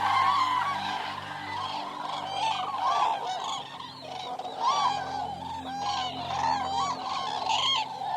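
A flock of Eurasian cranes calling, many loud trumpeting calls overlapping one another, with a low steady hum underneath.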